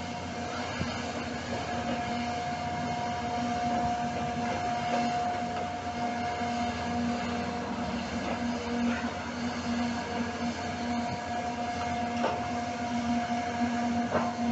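Demolition excavator working a building with its demolition attachment, its engine and machinery giving a steady drone with a held whine over it; a few knocks of breaking material come near the end.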